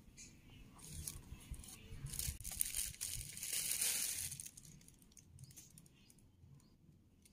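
Serrated knife sawing through a soft steamed sponge cake, a scratchy noise with a few clicks that builds over about four seconds and then fades.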